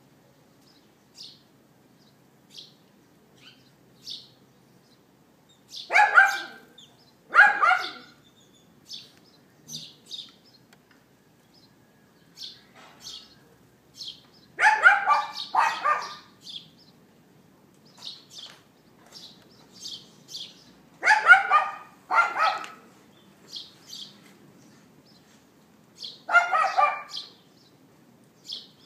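A dog yapping: loud, sharp barks that come mostly in pairs, several seconds apart. Short, faint bird chirps fall between them.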